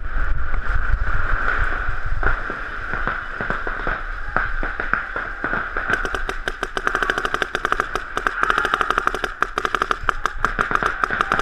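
Paintball markers firing rapid strings of shots, a fast crackle of many pops that grows much denser about six seconds in, over a steady hiss; low rumble in the first two seconds.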